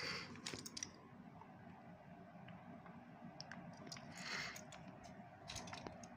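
Faint clicks and light scrapes of small die-cast toy trucks being picked up and handled, in small clusters about half a second in, three and a half seconds in and near the end, with two brief brushing sounds at the start and about four seconds in.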